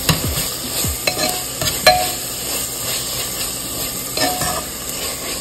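Onion, spinach and tomato masala sizzling in an aluminium pressure cooker while a metal spoon stirs and scrapes it, with a few sharp clinks of the spoon against the pot.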